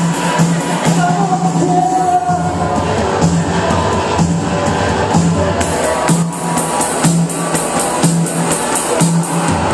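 Band music with a steady drum beat, regular cymbal ticks and a pulsing bass line; a voice sings briefly about a second in.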